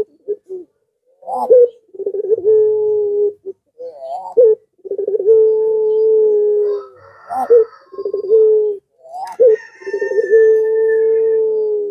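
Domestic Barbary (ringneck) dove of the 'pelung' type cooing: three long, drawn-out coos, each opening with a short rising note and then held steady on one low pitch, with a shorter call between the second and third.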